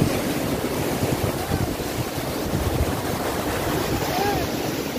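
Rushing white water of a rapids ride churning past a raft, a steady dense roar, with wind buffeting the microphone.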